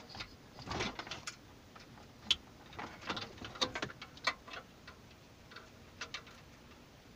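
Plastic wiring-harness connectors and loose wires clicking and rustling as they are handled and plugged into the back of an aftermarket double-DIN car stereo head unit. The light clicks come irregularly, the sharpest about two seconds in and again about four seconds in.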